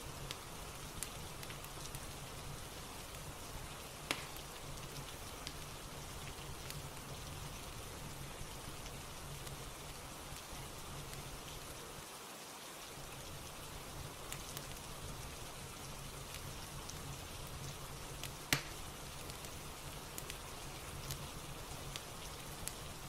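Steady rain ambience with a soft fire crackling under it: small scattered pops, with two sharper ones about 4 and 18 seconds in.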